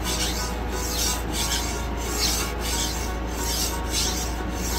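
Steel kitchen knife blade stroked back and forth on the coarse 45-micron side of a diamond sharpening stone. Each stroke makes an even scraping rasp, at about one and a half strokes a second.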